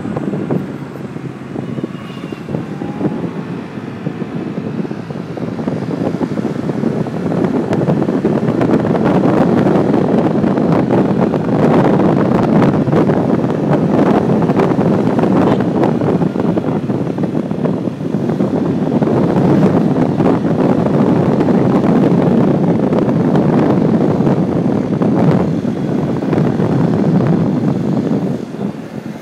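Loud wind rush on the microphone of a phone held out while riding a 50cc scooter, with the scooter's small engine running beneath it. The rush grows louder a few seconds in.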